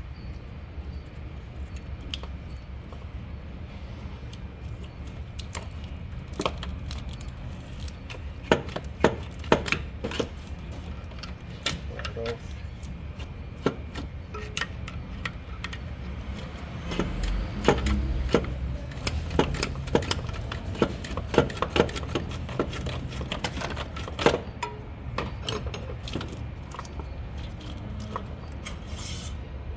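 Sharp, scattered metallic clicks and clanks of hand tools and parts being handled during alternator removal on a Toyota Camry, over a steady low hum. The clicks come thickest in the middle stretch.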